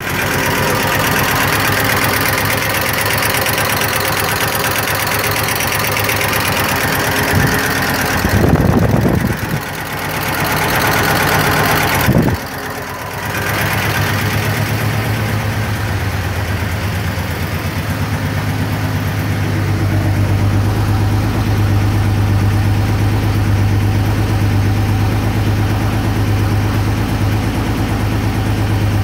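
Audi A4 2.8-litre 12-valve V6 idling with a rapid light ticking from the valvetrain: the sign of a noisy hydraulic lifter. Partway through there are a couple of brief rustling bumps, and after that the sound turns deeper, with a strong low hum.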